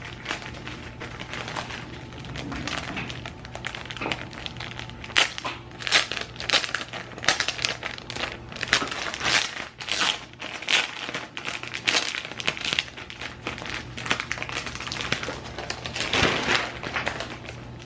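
Clear plastic packaging of gel window clings crinkling and crackling irregularly as it is handled and opened.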